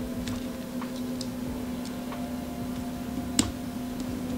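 Small screws and frame parts handled by fingers on a carbon-fibre drone frame, making scattered light clicks and ticks, with one sharp click about three and a half seconds in, over a steady low hum.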